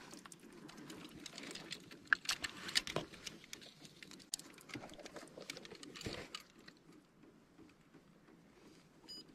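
Irregular clicks, taps and rustling of close handling, with a few sharper knocks in the first half; it thins out and grows quieter about two-thirds of the way through.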